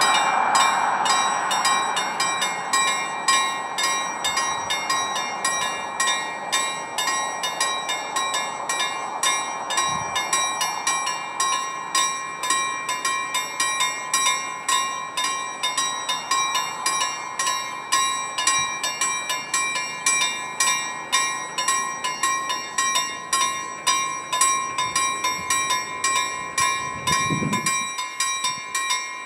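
Level-crossing warning bell ringing with fast, evenly repeated strikes, while the rumble of a passing train fades away over the first several seconds. A short low sound comes in near the end.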